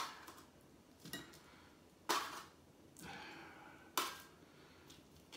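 Metal tongs clinking and scraping against a ceramic plate while picking up small potatoes: a few sharp clinks, the loudest about two and four seconds in.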